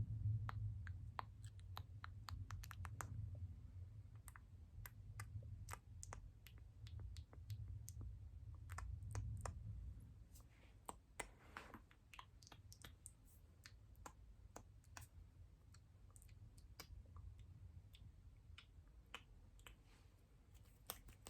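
Close-miked ASMR clicking: many small, sharp clicks at an irregular pace, with a low rumble under them for about the first half.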